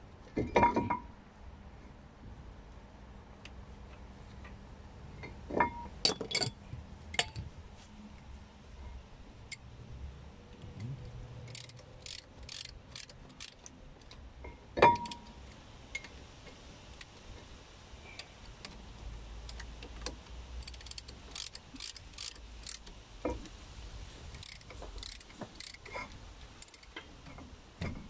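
Ratchet handle with a Torx bit clicking in short runs as the new rear brake disc's retaining screw is turned, with a few sharp metallic knocks of the tool, loudest about fifteen seconds in.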